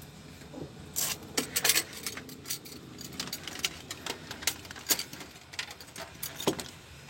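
A run of irregular light metallic clicks and clinks, like keys or small metal parts being handled.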